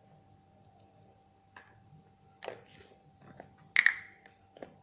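A few light clicks and knocks of kitchen utensils and spice containers being handled while spices are added to the curry pot. The loudest is a short knock with a brief ring about four seconds in, over a faint steady hum.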